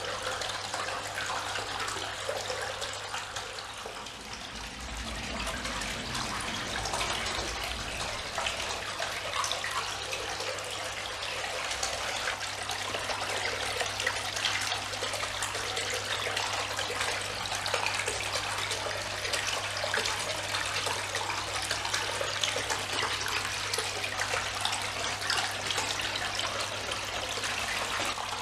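Water from the Geyser Peak cascading garden fountain splashing and trickling steadily as its pump pushes a bubbling jet up through the top rocks and the water spills down the rock tiers into the basin, with a steady low hum underneath.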